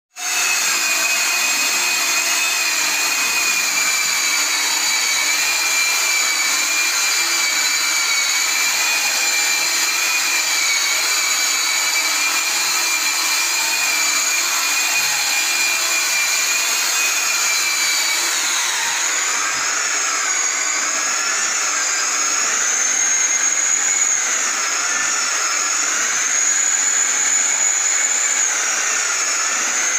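Two handheld electric polishers with round buffing pads whining steadily as they buff a red oxide cement floor. About two-thirds of the way through, the whine drops in pitch and starts to waver up and down.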